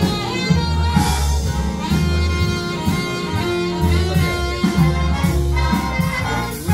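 Recorded live band music, jazz-like, played back through large Genesis tower loudspeakers and heard in the room, with strong held bass notes under the band.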